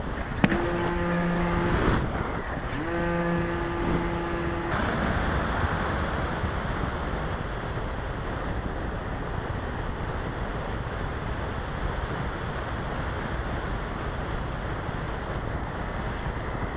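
Wind rush and the electric motor of a Multiplex Easy Glider RC plane climbing under power, heard through its onboard camera's microphone. Near the start come two long steady pitched tones, each about two seconds long.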